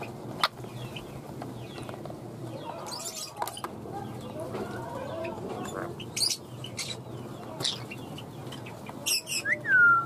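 Pet parrots calling in an aviary: soft warbling chatter and scattered sharp clicks and high chirps, then one loud falling squawk near the end.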